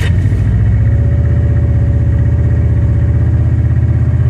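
Subaru Impreza STI flat-four boxer engine running steadily just after start-up, a loud, even low pulsing with the tachometer near 2,000 rpm.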